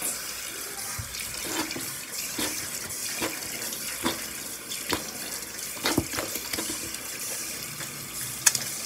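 Bathroom sink faucet running steadily into the basin, with short sharp clicks or taps about once a second; the loudest comes near the end.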